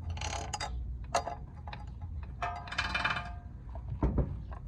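Metal roller chain of a dirt bike being handled: the links jangle and clink twice with a brief ringing, with a sharp click between and a dull thump near the end.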